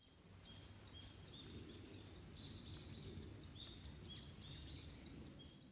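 Bird chirping in a fast, even rhythm, about five short high chirps a second, over a low background rumble.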